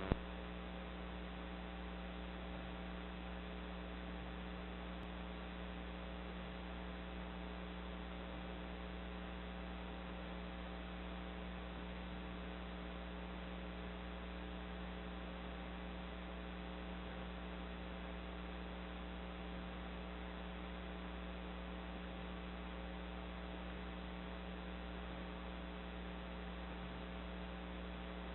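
Steady electrical mains hum with a faint hiss on the IP dome camera's audio line, unchanging throughout, with a narrow, telephone-like sound.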